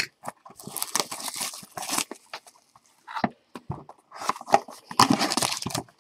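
A trading-card box being opened and a foil pack handled: irregular scraping, rustling and light taps of the box and its packaging. A louder stretch of crinkling foil wrapper comes near the end.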